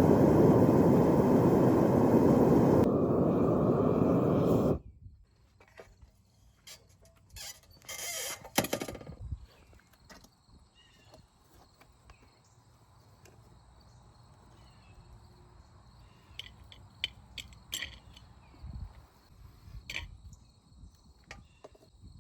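Propane melting furnace's burner running with a loud, steady roar, cutting off abruptly about five seconds in. After that, faint scattered clicks and knocks over a steady faint high-pitched hum.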